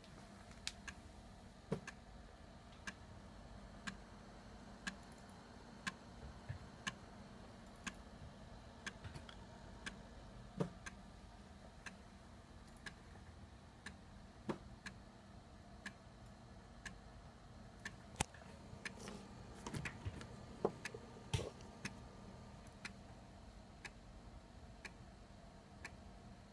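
A bare 3.5-inch floppy drive on a Sinclair QL formatting a disk: its head steps track by track with a sharp click about once a second over a faint steady hum. The clicks come quicker for a few seconds about two-thirds of the way through.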